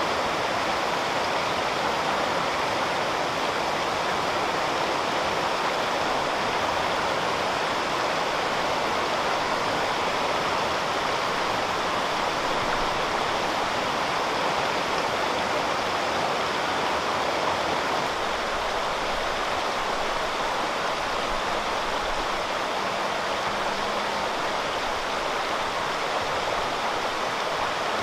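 Steady rushing of a waterfall and its mountain stream, with the sound dipping slightly about two-thirds of the way through.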